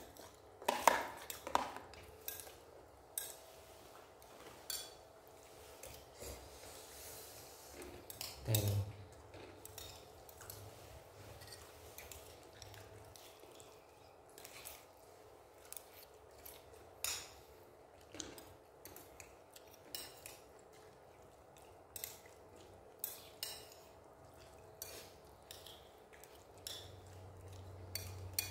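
Spoon and fork clinking and scraping against a plate while eating instant noodles: scattered light clicks throughout, with louder knocks about a second in and again at about eight and a half seconds.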